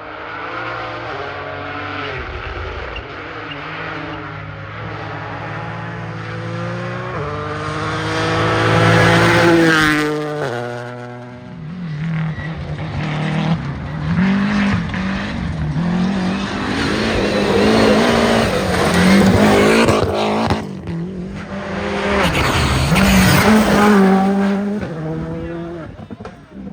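Rally car engine driven hard, its pitch climbing and dropping sharply again and again through gear changes, growing louder and fading several times, with stretches of tyre noise.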